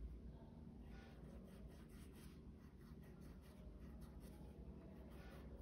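Faint, soft scratching of a small paintbrush stroking paint onto woven fabric, in short irregular strokes.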